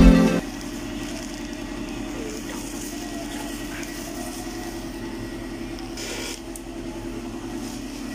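Music cuts off within the first half-second. A steady low mechanical hum follows, with a brief hiss about six seconds in.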